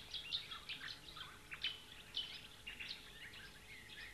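Rainforest birds calling: a dense run of short chirps and whistles, several a second, some sliding down in pitch.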